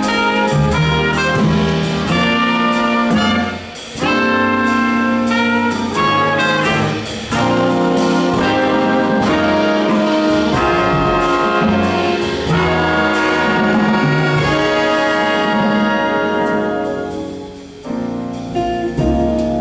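Jazz big band playing live, the trumpet and trombone section sounding full sustained chords together with the saxophones. The ensemble eases off near the end.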